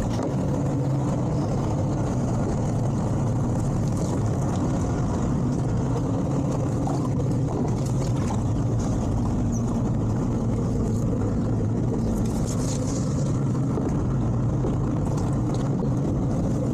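Outboard engines of a towboat running steadily at low speed while it manoeuvres, a continuous low engine drone.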